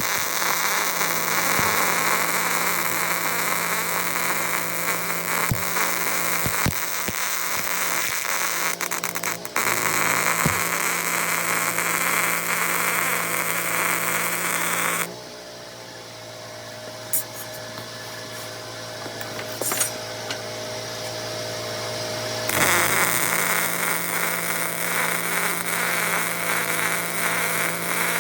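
Arc welding on steel: the arc crackles steadily for about fifteen seconds, stops for roughly seven seconds while the welding machine's hum carries on, then strikes again and runs on.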